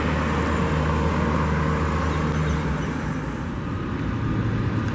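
Vehicle engine noise and general traffic din: a steady low engine hum fades out about two and a half seconds in, and another low engine hum comes in near the end.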